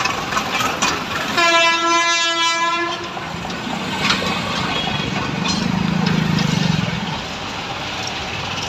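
A horn sounds once in a steady single-pitched blast lasting about a second and a half, followed by a low engine hum that swells for a few seconds and then eases off, over busy traffic and site noise.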